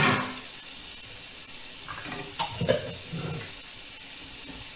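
Octopus and peppers sizzling steadily in a covered frying pan, with a short rush of noise at the start and two sharp knocks of kitchen utensils about halfway.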